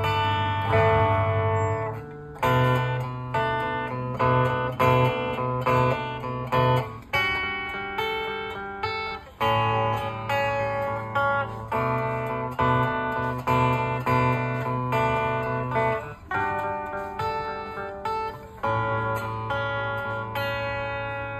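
Solid-body Telecaster-style electric guitar on a clean amp tone, played as picked chords and arpeggios that ring out, with a fresh attack every second or so and the chord changing every few seconds.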